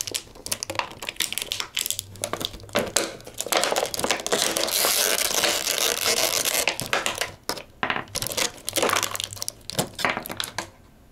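Plastic packaging crinkling and crackling as it is handled and pulled off a toy action figure, with scattered clicks of handling; the crinkling is densest and most continuous in the middle.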